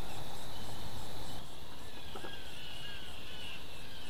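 Outdoor background hiss with birds calling faintly: a few short whistled notes in the second half. The background drops a little about a second and a half in.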